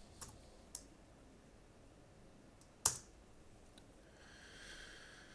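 A few light computer keyboard and mouse clicks as a value is typed in and confirmed, with one sharper click about three seconds in. A faint hiss comes up near the end.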